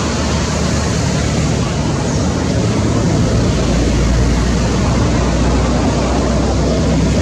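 Steady, loud rumbling noise with an even hiss over it and no separate events; the low rumble swells from about three and a half seconds in.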